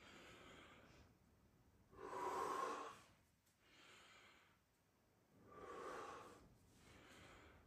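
A person breathing slowly and audibly. A louder breath comes about every three seconds, with quieter breaths between.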